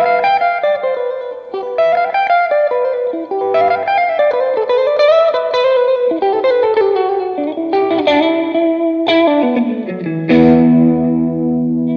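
Fender Stratocaster Elite electric guitar playing a single-note lead line with bent and sliding notes, then a low chord struck about ten seconds in and left to ring.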